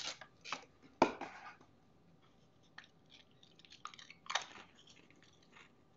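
A Pringles potato crisp being bitten and chewed, with scattered crunches. There is a sharp click about a second in and a louder crunch just past four seconds.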